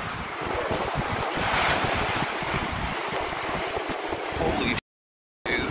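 Wind buffeting a phone microphone over surf breaking on the beach. The sound drops out completely for about half a second near the end.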